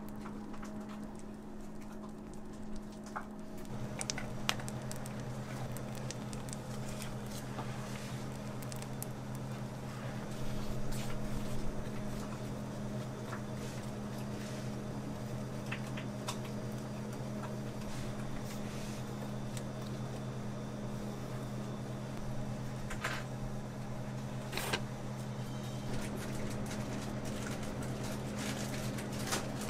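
Steady electric motor hum in a kitchen, with a second, lower hum joining about four seconds in. Over it come scattered light clicks and scrapes of a metal palette knife smoothing buttercream on a cake.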